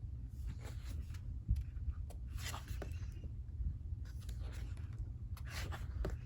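Paper handling: soft rustling and sliding swishes, about six of them, as pages of an album's photobook are turned and handled, over a steady low hum.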